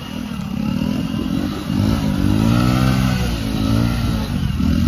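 Small motorcycle engine revving hard, the revs rising and falling, as the bike sits stuck in deep mud with its rear wheel spinning without grip.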